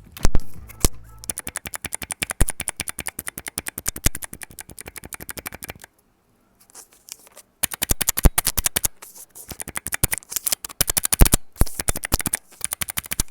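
Keys on a mechanical keyboard pressed in rapid succession, about ten clacks a second, stopping briefly about six seconds in and then resuming. This is a test of how the freshly lubed switch sounds.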